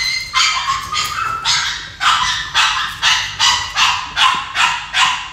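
Labrador retriever licking its injured leg: rhythmic wet licks, about two a second.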